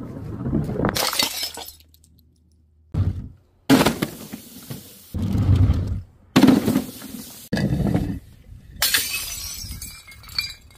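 A string of about seven separate smashes cut back to back: glass shattering and fragments scattering, and objects such as a glass jar of coloured sand and full plastic soda bottles crashing onto stone paving.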